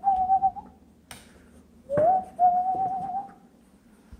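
Airedale Terrier puppy whining: two drawn-out whines, each sliding up and then held with a slight waver, the second starting about two seconds in and lasting about a second and a half.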